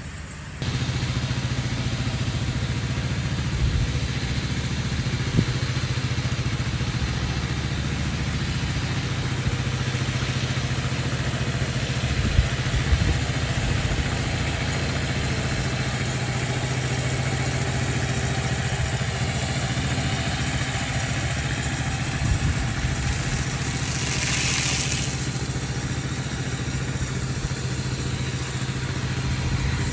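Small engine of a Japanese engine-driven irrigation pump running steadily at a constant speed, cutting in abruptly just after the start. A brief hiss of spray comes about two-thirds of the way through.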